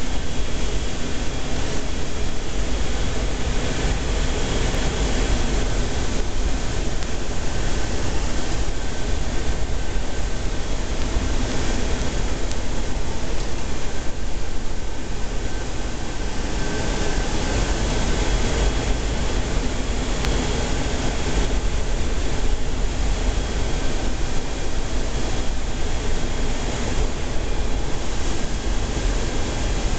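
Steady in-flight cockpit noise of a C-17 Globemaster III flying low: a loud, even rumble of its four turbofan engines and the airflow, with a few faint steady tones above it.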